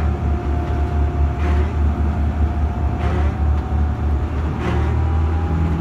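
Boat under way in rough water: a steady low engine drone with a thin steady whine above it, and water splashing against the hull about every one and a half seconds.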